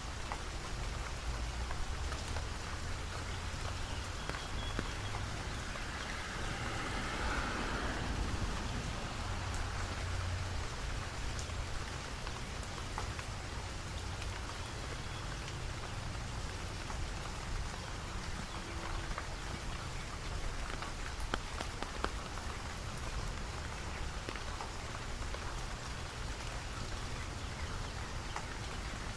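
Steady rain falling, with scattered sharp drip ticks over an even hiss and a low rumble underneath; the hiss swells briefly about seven seconds in.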